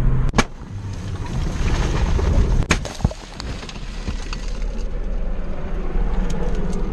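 Car crash heard from inside the car on its dashcam: a heavy low rumble of road and impact noise, with a sharp bang about half a second in, two more close together around three seconds in, and a few lighter knocks after.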